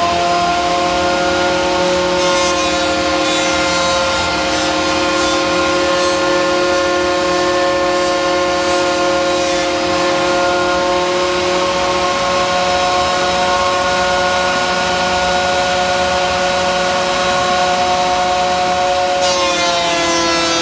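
Bauer benchtop thickness planer running at full speed with a steady high whine, a dust collector running with it. Near the end the pitch dips slightly and a rasping hiss comes in, as a board starts feeding into the cutterhead.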